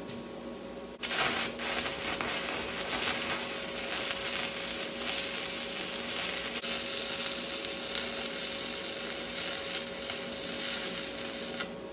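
Electric welding arc from a YesWelder multi-process welder: it strikes about a second in, hisses and crackles steadily as a bead is laid, and cuts off sharply near the end.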